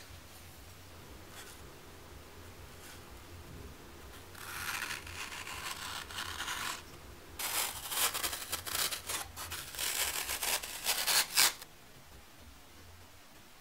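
A pencil scratching around the edge of a wooden lid as it traces a circle into green floral foam, then a cutter knife slicing the floral foam in a quick run of short, louder scratchy strokes that stop about a second and a half before the end.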